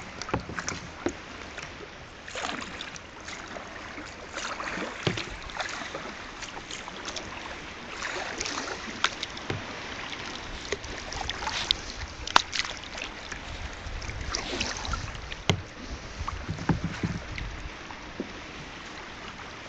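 Kayak paddle strokes splashing and dripping in sea water, irregular and repeated, with wind on the microphone. A few sharp knocks stand out in the second half.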